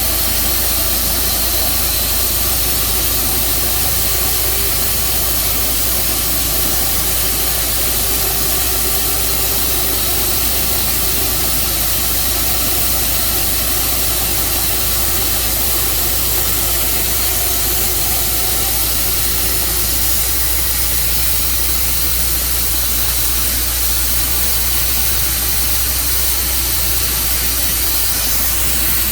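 Tru Cut sawmill running steadily, its engine and blade making a constant loud drone and hiss.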